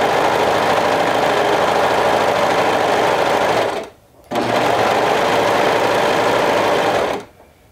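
Brother 1034D serger running at speed, stitching a seam. It stops for about half a second roughly four seconds in, runs again, then stops near the end.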